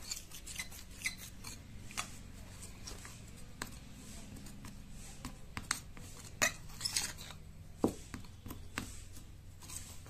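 Metal fork scraping and clinking against a small bowl while stirring dry flour and talcum powder, in irregular strokes with a few sharper clinks a little past the middle.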